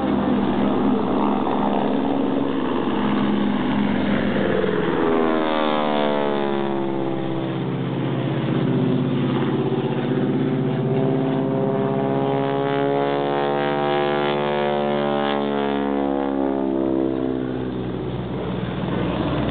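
North American Harvard's nine-cylinder Pratt & Whitney R-1340 radial engine and propeller droning overhead during an aerobatic pass, the tone sweeping and shifting from about five seconds in as the plane passes over and banks away.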